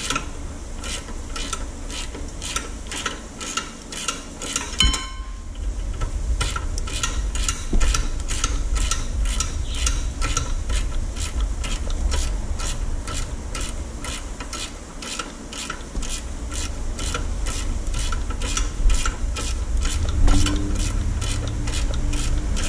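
Socket ratchet clicking steadily, about three clicks a second, as the 17 mm rear brake caliper bracket bolts are run in snug by hand, with a short break about five seconds in.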